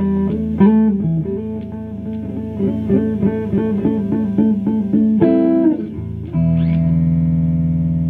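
Electric guitar playing a quick run of single picked notes, about four a second, then striking a chord about five seconds in. A further chord is held and left ringing near the end.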